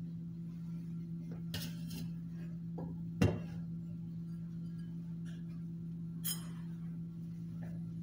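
Aluminium couscous steamer and a glass bowl being handled on a table: a few light clinks and knocks, the loudest a dull thump a little over three seconds in, over a steady low hum.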